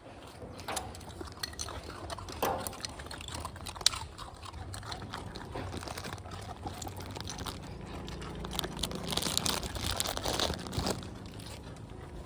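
Street dogs crunching and chewing biscuits, with scattered crisp clicks and a louder rustling burst near the end.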